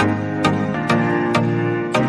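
Background music with a steady beat, about two beats a second, over held keyboard-like notes.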